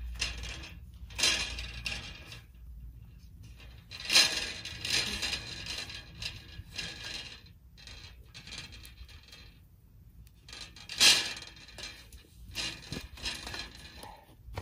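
Legs of a lightweight aluminium camp table being adjusted and the table shifted on the ground to level it: several bouts of light metallic clinking and scraping, the loudest about four seconds in and again about eleven seconds in.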